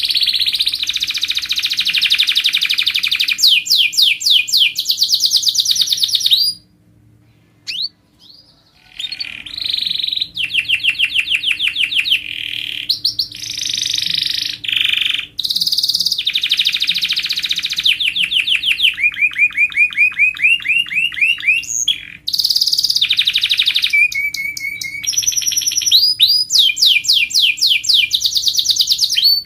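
Domestic canary singing a fast, loud song of trills, each run of rapidly repeated notes giving way to a different one, some rising in pitch, with a short pause about seven seconds in.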